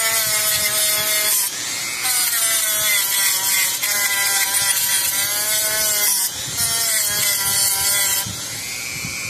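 Handheld electric rotary tool running, its small spinning abrasive head scrubbing black burn residue off a circuit board. The motor's whine wavers and dips in pitch under load, with a scratchy scrubbing hiss on top that stops briefly twice, about a second and a half in and again about six seconds in, and eases near the end.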